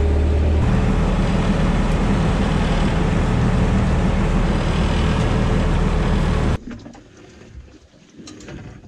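Fishing boat's engine running steadily and loud, with a low hum; it cuts off abruptly about two-thirds of the way through, leaving quiet with a few faint clicks.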